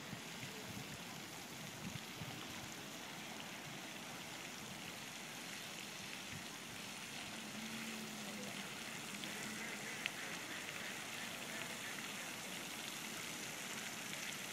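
Pond fountains spraying, a steady hiss and patter of falling water on the pond surface, with one sharp click about ten seconds in.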